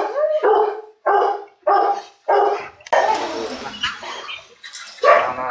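Rottweiler barking: a quick run of about five short barks roughly half a second apart, then a longer, rougher stretch and one more bark near the end.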